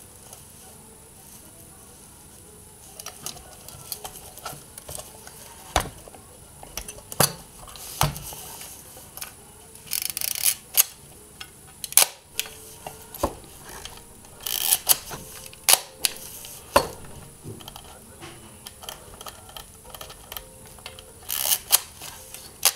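A Porst Uniflex SLR camera body being handled, its back opened and closed: scattered sharp clicks and knocks from its metal parts, with a few short rasping scrapes.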